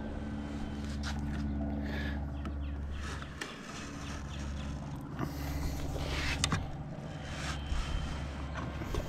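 Footsteps on concrete and scattered clicks and knocks, over a steady low hum.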